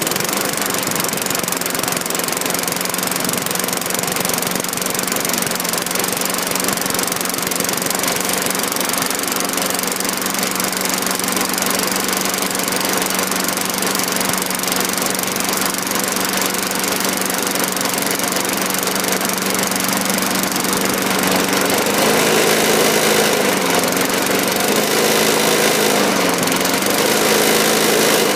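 1991 Tecumseh 4 hp single-cylinder four-stroke engine on a Craftsman Eager-1 push mower, running steadily. About three-quarters of the way in, its speed starts swinging up and down several times.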